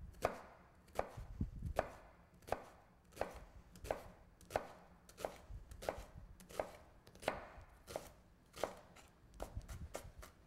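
Chef's knife dicing an onion on a plastic cutting board: steady, even strokes, each blade tap knocking the board about one and a half times a second, with a few lighter taps near the end.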